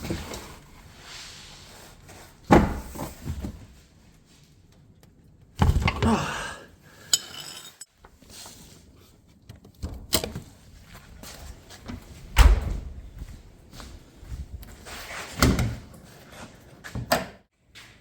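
A string of separate thuds and clunks, a few seconds apart, over low handling noise: hands and tools working on a car during an oil change.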